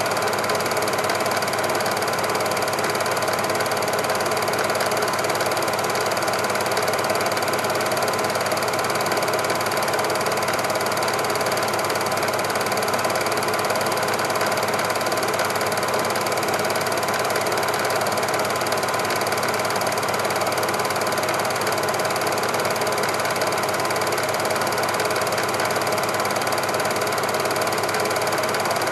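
Super 8 film projector running, a steady, even mechanical whirr and rapid clatter that does not change as the train passes or the shot cuts.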